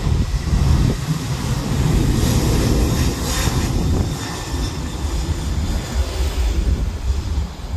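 Jet engines of an Eastar Jet Boeing 737 running as the airliner rolls along the runway, heard as a steady low rumble with hiss.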